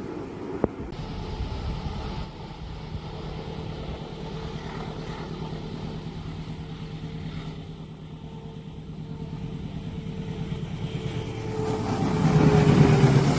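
Train passing a level crossing: a steady engine hum over a fast, pulsing rumble, growing louder near the end.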